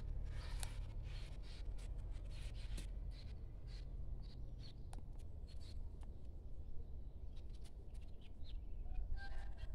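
Scattered light clicks and rustles over a low steady rumble, with a short bird call near the end.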